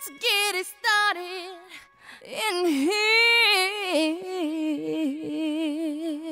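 Music: a woman's voice sings an unaccompanied, wavering melody in a few short phrases, then one long held phrase.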